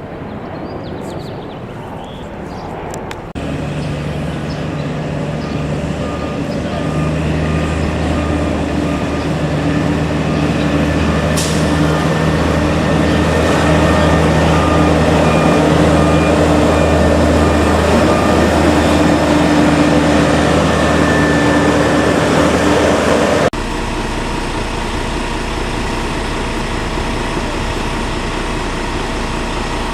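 A heavy truck engine running close by, with a reversing alarm beeping steadily for several seconds in the middle. The sound changes abruptly a few seconds in and again near the end.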